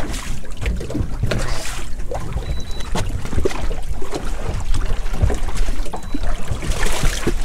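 Water splashing and sloshing around a snook held at the surface beside a boat hull, with a couple of louder splashes as the fish moves, and wind buffeting the microphone with a low rumble.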